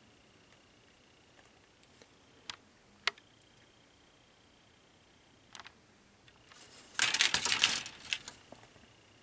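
Gray styrene model-kit sprues clicking and clattering against each other as they are handled: two sharp clicks about two and a half and three seconds in, then a dense rattle of plastic on plastic for about a second near the end, trailing off in a few ticks.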